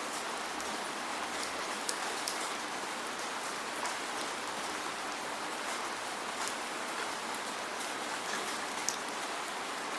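Steady rain falling, with no thunder: an even hiss of rainfall with scattered sharper drop ticks, a few standing out near two seconds and again near nine seconds.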